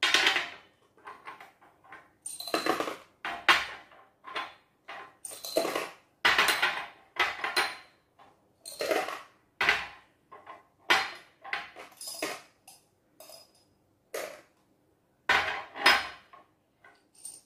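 Small glass jars clinking and knocking on a tabletop as they are handled and small pieces are moved between them: an irregular run of sharp clinks, some with a short glassy ring.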